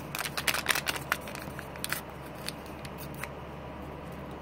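Small sharp clicks and rustles of a sea-monkey egg packet being handled: a quick run in the first two seconds, then a few scattered clicks, over a low steady hum.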